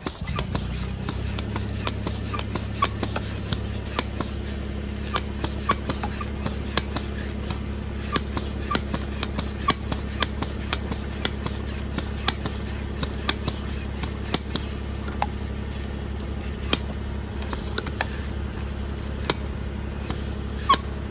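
Bicycle foot pump being worked by foot, inflating a scooter's inner tube: irregular clicks and rubbing from the pump, several a second, over a steady low hum.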